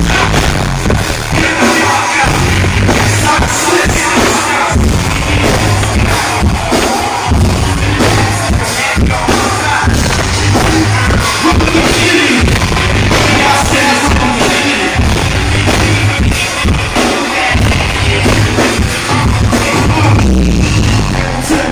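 A live band playing loud through a club's sound system, with a singer's voice over a heavy, repeating bass beat.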